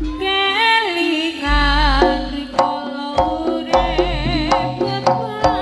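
Live Javanese jaranan gamelan music: sharp kendang drum strokes and deep sustained bass notes under a high, wavering melody line.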